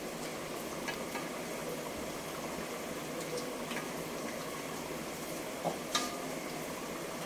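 A metal spoon clicks lightly against a ceramic plate a few times while stirring through a thick curry, over a steady background hiss. The loudest two clicks come close together about six seconds in.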